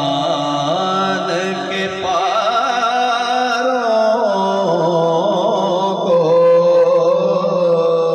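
Man singing a naat (Urdu devotional poem) solo, amplified through a microphone, in long held notes with wavering ornaments, over a steady low drone.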